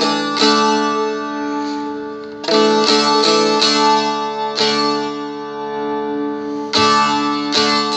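Seagull Merlin, a small four-string strumstick-style fretted dulcimer, strummed through a short melodic phrase. The strokes come in a loose rhythm, with a quick group of strums about two and a half seconds in, and the open drone strings ring on steadily between them.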